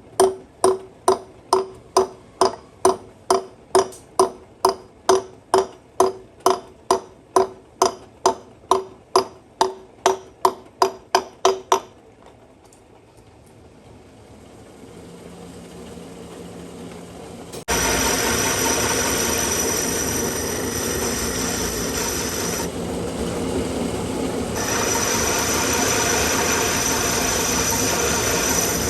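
Metal being hammered with even, ringing blows, a little over two a second, stopping about 12 seconds in. About 18 seconds in, a lathe starts suddenly and runs with a steady machining noise.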